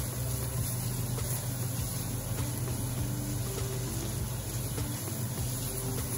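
Sliced onions frying in a stainless steel pan, sizzling softly as they are stirred with a silicone spatula, over a steady low hum.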